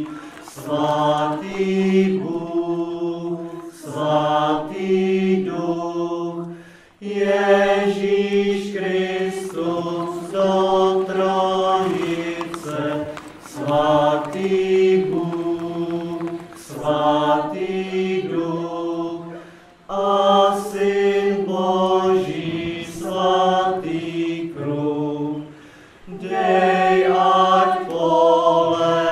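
Choral chant as background music: voices sing a slow melody in long held notes, with short pauses between phrases.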